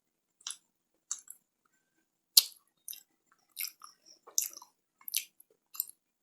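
Biting and chewing a Cadbury Dairy Milk chocolate bar: a string of short, crisp mouth clicks and snaps, about eight in all, the sharpest one about two and a half seconds in.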